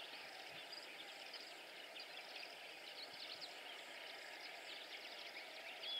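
Outdoor ambience of many faint, high, short chirps and calls from a mass of small birds, over a steady hiss, with one slightly louder call near the end.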